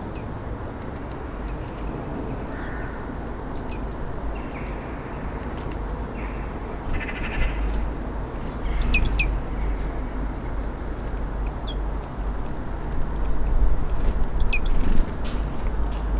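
Small songbirds calling: short, high chirps a few seconds apart, more often in the second half, over a steady low rumble.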